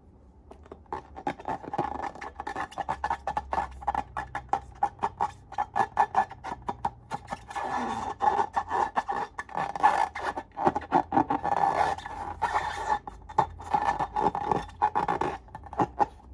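Slime being squished and worked by hand, making rapid, irregular sticky crackles and small pops.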